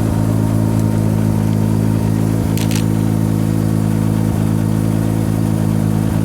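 Mazda RX-7's two-rotor Wankel engine idling steadily, with a couple of brief clicks about two and a half seconds in.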